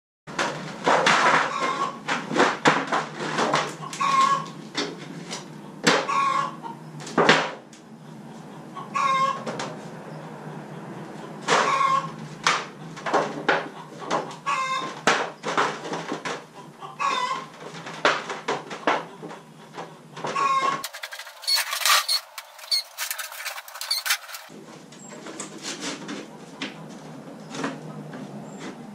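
Chickens clucking and calling, with short pitched calls repeating every second or two.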